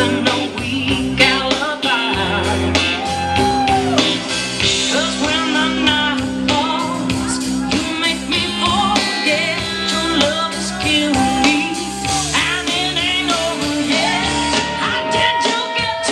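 Recorded rock-and-roll song with a singer's held, wavering notes over steady accompaniment, played loud over a club sound system.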